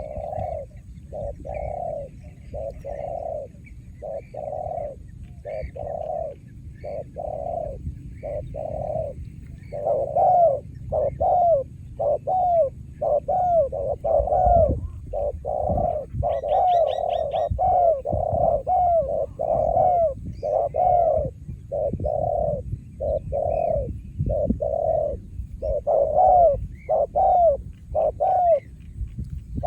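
Spotted doves cooing in a long, unbroken run of low repeated coos, several a second, which grow louder about a third of the way in. This is the calling of a decoy-trapping session. Briefly, a small bird chirps high above the coos, and a low rumble of wind or handling noise runs underneath.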